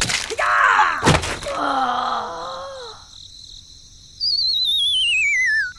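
Two sharp thuds, then a drawn-out groaning voice that sinks in pitch, followed by a loud high whistle that glides down with a fast wobble and cuts off suddenly.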